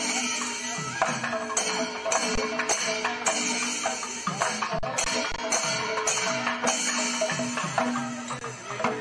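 Percussion-led music with drums and shaken or jingling percussion on a steady, even beat.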